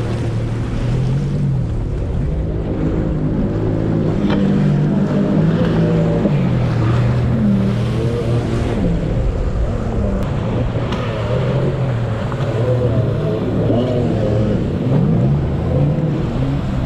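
Jet ski engine running hard, its pitch rising and falling as the throttle and load change over the waves, over a steady rush of wind and water.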